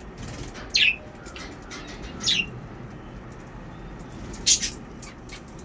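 Pet budgerigar chirping: three loud, sharp calls, each sliding down in pitch, about a second in, around two and a half seconds and past four and a half seconds, with fainter short chirps between them.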